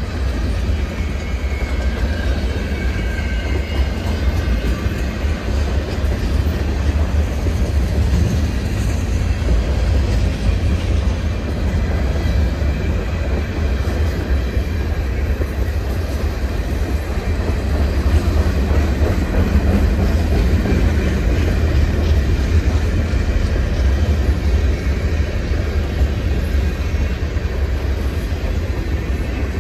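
Empty covered grain hopper cars of a freight train rolling past: a loud, steady rumble of steel wheels on rail, with faint high wheel squeals in the first few seconds.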